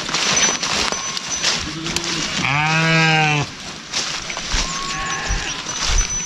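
Livestock calling: one long, low call lasting about a second, starting about two and a half seconds in, with a fainter, higher call about five seconds in. Both sit over a steady hiss.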